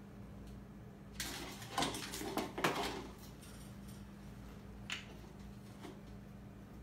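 Two young raccoons playing in a wire cage: a burst of scuffling and clattering about a second in that lasts about two seconds, then a single sharp click a couple of seconds later.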